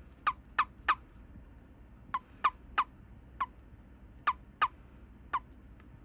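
Miyako toad giving its release call while held in the hand: about ten short chirps, each falling in pitch, in quick groups of two or three.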